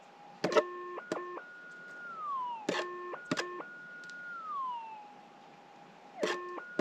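Minelab GPX 6000 metal detector's electronic audio as a scoop of dirt is passed over its coil: a steady tone breaks three times into short stepped beeps with sharp clicks, each followed by a higher held tone that slides back down. The detector is sounding off on the target held in the scoop.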